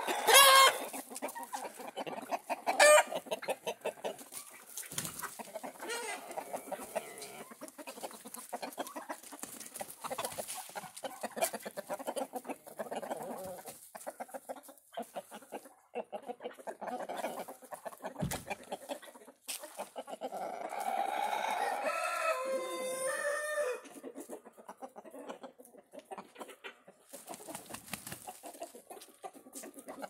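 A flock of chickens clucking and calling, with a rooster crowing; loud calls come about half a second in and again near three seconds, and a longer loud call runs for a few seconds about two-thirds of the way through.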